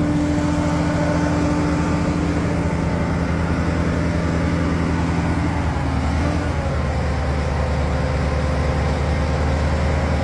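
Heavy truck engine running steadily, its note shifting to a lower, stronger hum about six seconds in as it takes up the pull.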